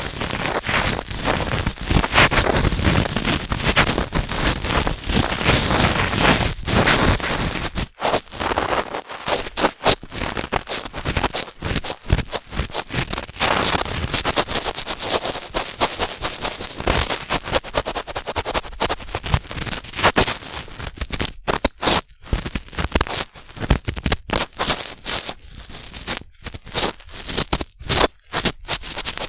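Cotton swab rubbing and scraping in the ear of a binaural ear-shaped microphone, a close crackling scratch. Dense and continuous for the first eight seconds or so, then separate strokes with short pauses between them.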